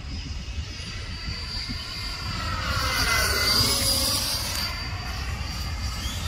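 Jet engine of a Mirage delta-wing jet flying past overhead, a high whine over a rushing sound that swells to its loudest three to four seconds in, with the sweeping, phasing tone of a flyby. Wind rumbles on the microphone throughout.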